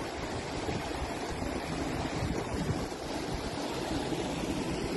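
Steady rushing of a shallow meltwater stream running over a gravel bed, with wind buffeting the microphone.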